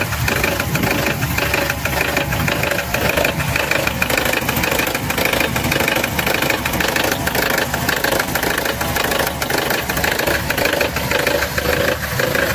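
Mercedes-Benz M111 four-cylinder petrol engine idling with a rapid knocking from inside the engine. The owner places the knock low at the second piston rather than up in the valve gear, and it persists with new hydraulic lifters and a new oil pump fitted.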